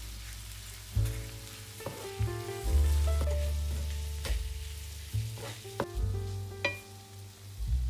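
Food sizzling in a frying pan as it is stirred, with a few sharp clicks of a utensil against the pan. Background music with deep bass notes and a melody runs under it and is the loudest sound.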